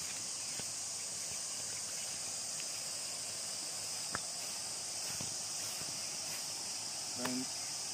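Steady, high-pitched insect chorus, with a few soft footsteps on the grassy path.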